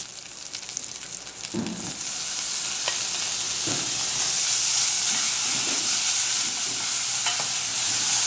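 Onion, garlic and hot pepper sizzling in oil in a metal pot. The sizzle grows louder about two seconds in as flaked smoked herring is added. A wooden spoon knocks and scrapes against the pot a few times while stirring.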